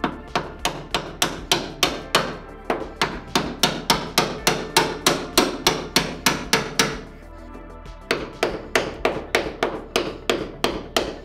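Rapid hammer blows on a stuck steel door hinge of a Saab Sonett, about four strikes a second, each with a metallic ring. The hammering pauses briefly about seven seconds in, then resumes.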